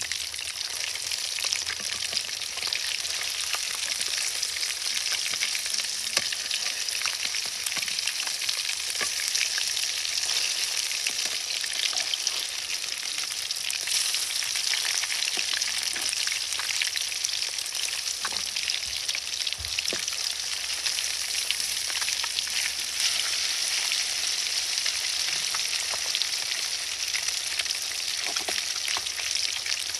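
Fish frying in a pan of hot oil: a steady sizzle with many fine crackling pops.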